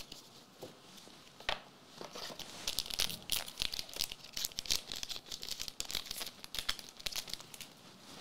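A foil booster pack for the One Piece trading card game being torn open and crinkled: one click, then a few seconds of quick crackling rips and crinkles that die away near the end.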